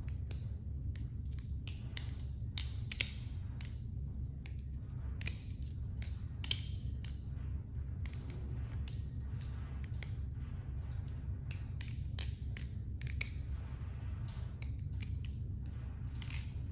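Dobruski balisong (butterfly knife) being flipped: a quick, irregular run of light clicks and taps as the handles swing around the pivots and knock together, with two louder clacks about three and six seconds in. A low steady hum runs underneath.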